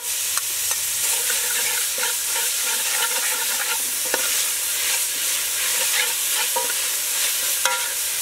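Chopped aromatics sizzling in oil in a metal pot while a metal ladle stirs them, with a steady hiss and scattered clinks and scrapes of the ladle against the pot.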